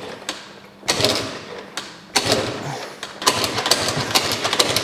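Piaggio NRG scooter being kick-started: three kicks about a second apart, each turning the engine over briefly without it catching. The scooter won't start, and the kickstarter is being used because the battery is dead and the electric starter doesn't work.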